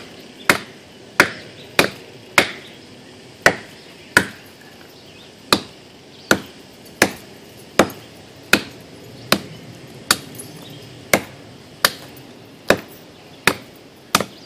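Cuma battle cleaver chopping into the trunk of a live, wet pine, about one sharp blow every three-quarters of a second at a steady pace, with a brief pause about five seconds in.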